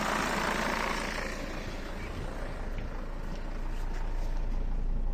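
Mercedes Sprinter diesel engine idling with the clutch released, its loudness dipping slightly and then rising. The van is suspected of a worn dual-mass flywheel that chatters and makes the idle hunt.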